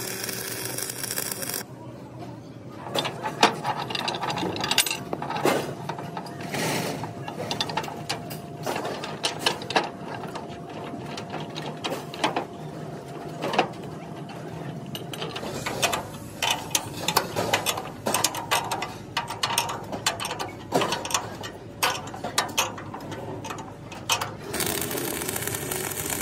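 Irregular metal knocks and clanks of steel chassis parts being positioned and hammered on a truck frame. The crackling hiss of arc welding is heard in the first second or two and again near the end.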